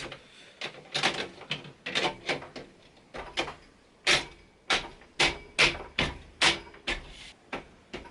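Hard knocks and clicks of PC case panels being handled and fitted onto the case, about a dozen separate strikes, the loudest coming in quick succession near the middle.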